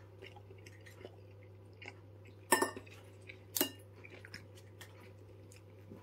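Steak knife and fork scraping and clinking against a ceramic plate while cutting soft food, with faint small clicks and two louder clatters about two and a half and three and a half seconds in. A steady low hum runs underneath.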